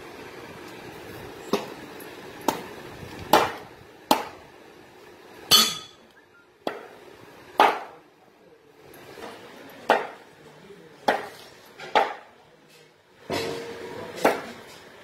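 A heavy curved chopping blade comes down on raw green mangoes on a wooden board, about a dozen sharp chops, roughly one a second, with a short pause about halfway through.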